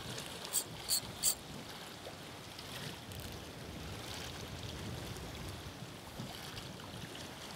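Seawater in a strong tidal current washing and lapping against a rocky shore, a steady wash, with three short sharp clicks in quick succession about a second in.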